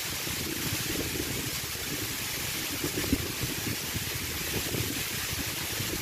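Waterfall pouring and splashing onto rock and shallow water: a steady rushing hiss.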